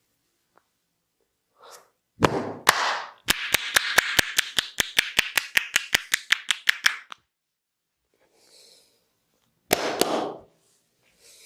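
Hands slapping skin in percussive massage strokes: two hard slaps about two seconds in, then a fast even run of sharp slaps, about six a second, for nearly four seconds, and one more slap near the end.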